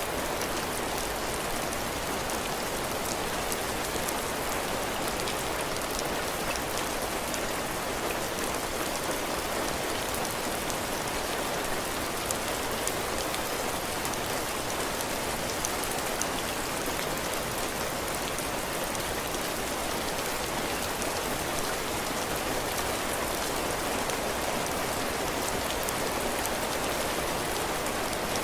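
Heavy rain falling steadily on a cabin porch roof and floor, a dense even patter with many fine drop hits.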